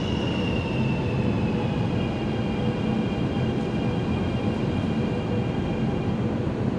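CRH380A-based Vibrant Express high-speed electric train running past the platform with a steady rumble. Its high motor whine falls in pitch over the first couple of seconds, then holds steady as the train slows into the station.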